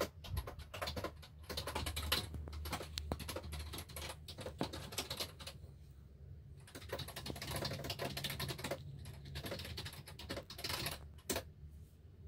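Rapid, irregular clicking like keys being typed, in two long runs with a short pause about six seconds in, over a low steady hum.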